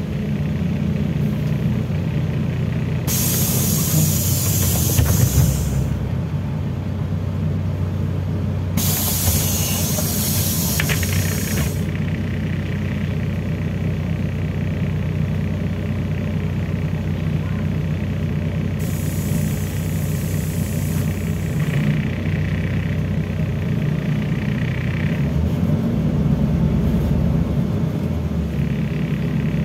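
Inside a LiAZ-5293.54 city bus: its engine drones steadily as the bus draws up at a stop and pulls away, with three loud hisses of compressed air from the pneumatic brakes and doors, a few seconds in, about nine seconds in and about nineteen seconds in. A steady high tone sounds for a few seconds just after the last hiss.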